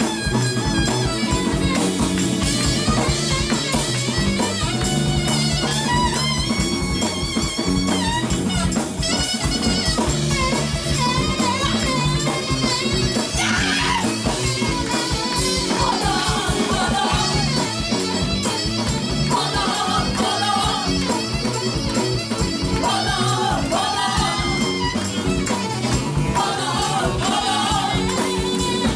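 Live band playing a song: drum kit, bass and guitar under a wavering lead line, with saxophone in the band.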